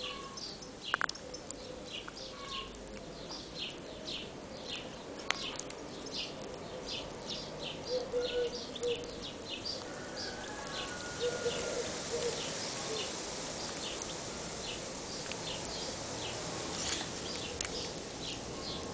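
A small bird chirping, one short high chirp repeated about two or three times a second, with a couple of sharp clicks in the first half.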